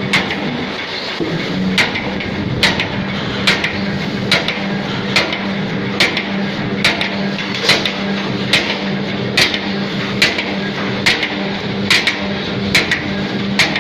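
CNC punch press punching holes in sheet metal for perforated mesh: a sharp metallic stroke a little more than once a second, evenly spaced, over the steady hum of the machine.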